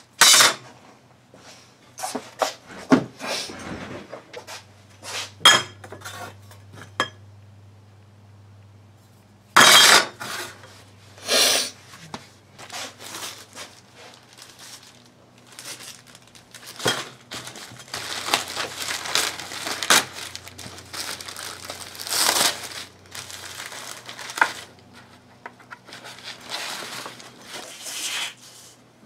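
A thin brass sheet and a brass tube set down and shifted on a wooden workbench give sharp metallic clinks and knocks, the loudest at the very start and twice around ten seconds in. In the middle a sheet of paper rustles for several seconds as it is handled and laid flat.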